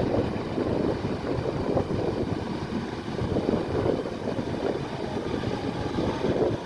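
Kubota tractor engine running steadily under load while working a rice field: a low, rough drone with no clear pitch, its level wavering slightly.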